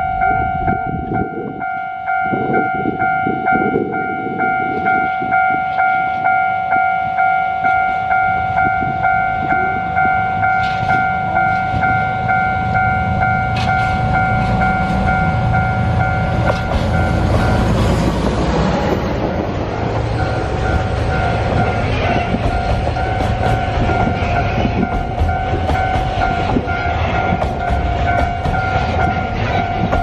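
Level-crossing warning bell ringing in a steady repeating pattern as the DE70 701 diesel locomotive approaches, its engine growing louder until it passes about 17 seconds in. Container freight wagons follow, rolling by with wheels clacking over the rail joints.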